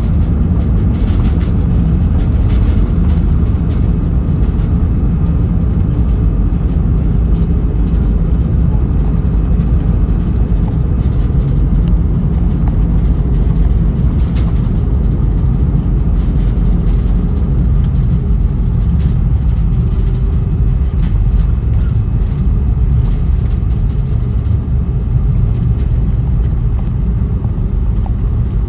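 Steady low rumble inside an Airbus A321neo's passenger cabin from the engines and the air rushing past the airframe, with scattered light rattles.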